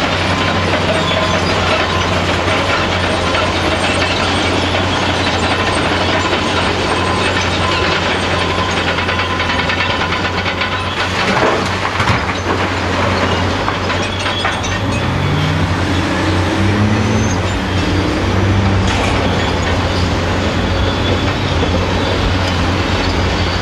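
Caterpillar 385C excavator's diesel engine running steadily, rising in pitch a few times as it works the boom and swing. Broken rock clatters into the steel body of a dump truck, most sharply about halfway through.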